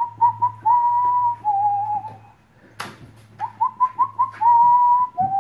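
A person whistling a call to Airedale Terrier puppies, to bring them over. Each call is a run of quick short chirps, then a long high note dropping to a slightly lower held note. The call comes twice, with a sharp knock between the two.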